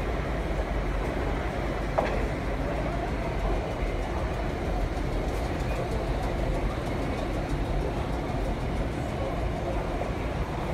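Vintage IRT Lo-V subway cars rolling into the station along the platform: a steady rumble of steel wheels on the rails, with one sharp clack about two seconds in.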